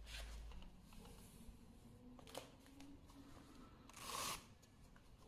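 Faint handling noises, with a short scratchy rasp about four seconds in as a sanding disc is pressed onto the hook-and-loop backing pad of a Rupes machine.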